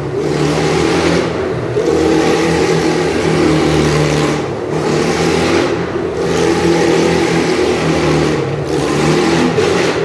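Small kart engine running steadily at speed while the kart circles the Wall of Death. The sound dips briefly several times as the kart goes round the wall.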